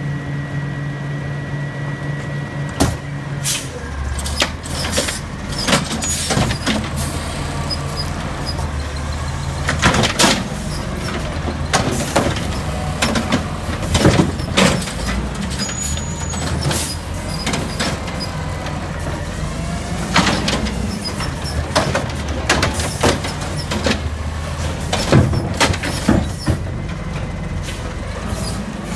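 Automated side-loader garbage truck's diesel engine running at idle, with repeated hard knocks and clatters of plastic wheeled trash carts being moved and set down.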